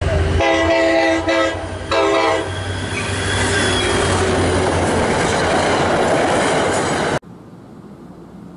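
Train horn sounding two chord blasts over the loud rumble of a passing train, the rumble running on until it cuts off suddenly about seven seconds in, leaving a much quieter steady background.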